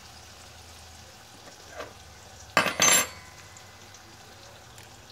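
Two quick clattering knocks of metal cookware, about a third of a second apart, over a faint steady sizzle of chicken frying in a pan.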